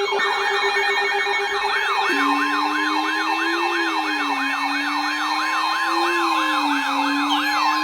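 Several electronic siren and alert tones layered at once: a rapid yelping siren cycling about three times a second over steady alarm tones. A slowly wavering lower wail joins about two seconds in, and falling pitch sweeps come in near the end.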